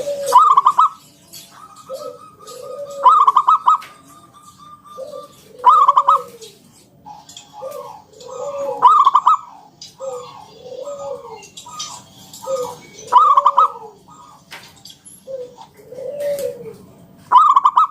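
Local zebra dove (perkutut) singing in the drawn-out 'ngalun' style: repeated phrases of a few low, arching coos, each ending in a louder, higher rolling note, about every three to four seconds.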